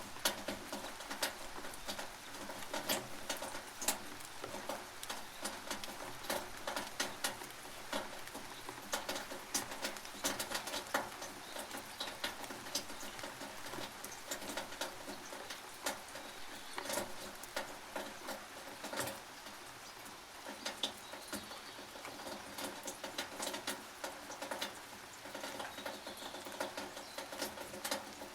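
Rain on a tin roof: a steady hiss with many irregular sharp drips and taps striking the metal.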